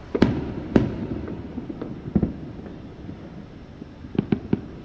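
Distant fireworks going off: two sharp bangs near the start, another about two seconds in, and a quick run of three bangs near the end, over a steady background hiss.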